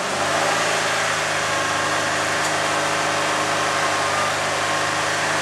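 Ford car engine revved up and held at a steady raised speed, running evenly, for a check that the ignition timing advances as revs rise.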